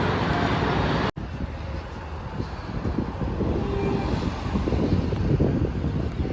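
Steady vehicle rumble with wind buffeting the microphone, broken by a brief cut-out about a second in.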